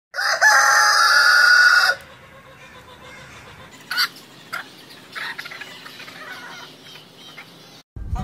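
Rooster crowing: one long, loud crow of about two seconds, followed by quieter short calls.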